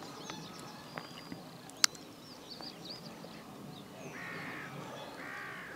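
A crow cawing twice, about four and five seconds in, with faint small-bird chirps earlier. A single sharp click, the loudest sound, comes just under two seconds in.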